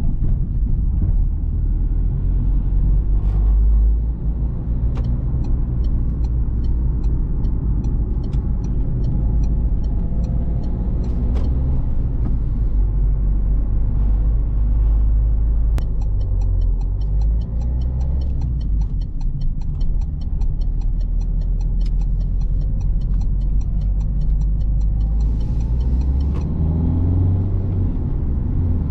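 In-cabin sound of a Citroen C3 Picasso 1.6 HDi four-cylinder turbodiesel on the move: a steady low engine drone with road and tyre rumble. Fast, even ticking of the turn indicator comes in about five seconds in and again from about sixteen seconds.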